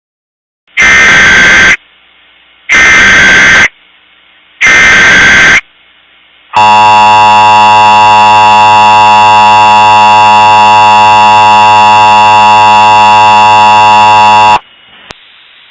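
Emergency Alert System tones. Three short bursts of data screech, about a second each with a second's gap between them, carry the alert's coded header. They are followed by the steady buzzing attention tone, held for about eight seconds before it cuts off, then a click.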